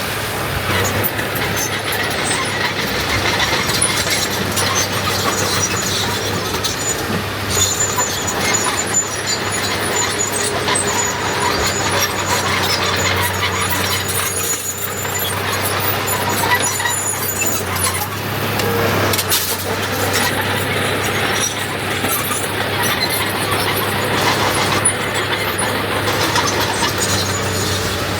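Diesel engines of heavy earthmoving machinery running steadily under load, with a thin high metallic squeal coming and going.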